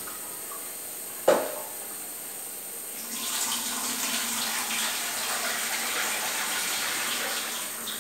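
A single sharp knock, then a kitchen tap running for about four seconds before it is turned off.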